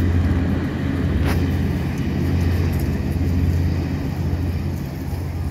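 Passenger hovercraft's engines and twin ducted propellers giving a steady low drone with a hiss of air and spray as it moves off across the water, easing a little near the end.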